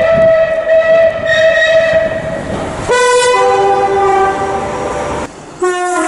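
Train horns from successive clips. First one high horn note is held for about three seconds. Then a two-tone horn sounds a higher note followed by a lower one, and another horn starts near the end.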